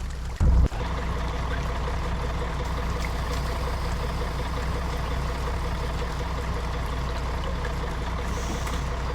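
Intercity coach bus engine running steadily, heard from inside the passenger cabin, with a single loud low thump about half a second in.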